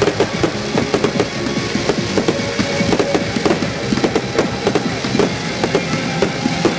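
Fireworks display firing a rapid, continuous volley of shell bursts and launches, several bangs a second with no pause.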